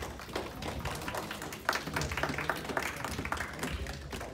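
Scattered clapping from a small seated audience, irregular claps over a low murmur of voices.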